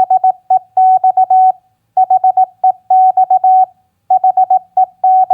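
Morse code practice tone at 18 words per minute, a single steady tone keyed in dots and dashes. The same short word, read as "HEX" (four dots, a dot, dash-dot-dot-dash), is sent three times with a short pause between repeats.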